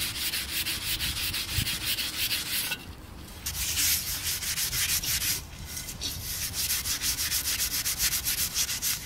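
Brass wire scouring pad scrubbing the soot-blackened ceramic surface of a raku-fired urn, cleaning off the smoke-reduction carbon to reveal the glaze. Quick back-and-forth scratching strokes, about five a second, stopping twice for about half a second.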